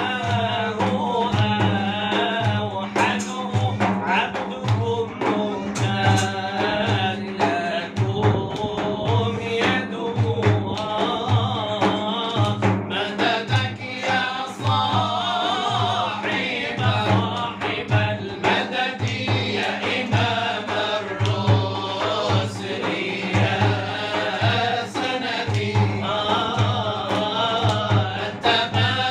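Male voices singing Arabic devotional inshad over a steady beat from low drum strokes, about one a second.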